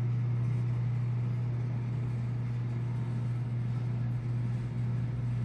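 Steady low-pitched hum with a hiss over it, unchanging throughout.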